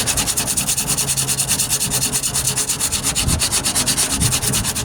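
Sandpaper rasping over cured Bondo body filler in quick, even back-and-forth strokes, about nine a second, levelling the filled patch flat.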